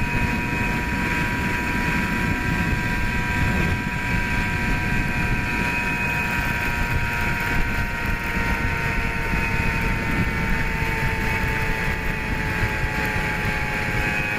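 Heavy wind rush buffeting the microphone, over a steady mechanical whine that slowly falls a little in pitch.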